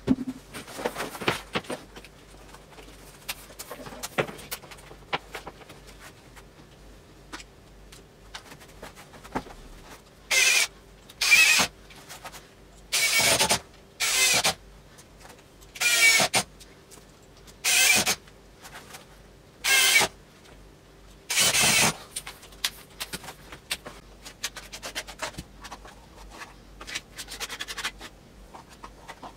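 Cordless drill-driver run in eight short bursts of about a second each, in quick succession, with light clicks and knocks of handling before and after.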